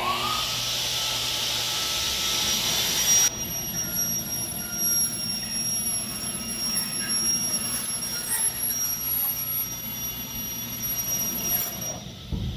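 Circular saw of a CNC aluminium-profile cutting machine running at speed with a steady high whine as it cuts aluminium profile. The loud hiss of the cut eases about three seconds in, and the saw sound stops shortly before the end.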